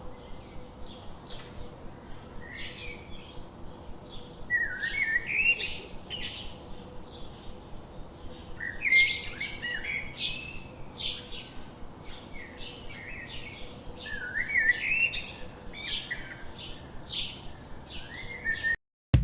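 Songbirds chirping: a quick run of short high chirps, with a longer warbling phrase breaking in three times. All of it cuts off suddenly just before the end.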